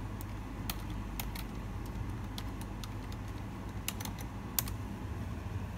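Computer keyboard being typed on: a handful of irregular key clicks as a short command is entered, over a steady low hum.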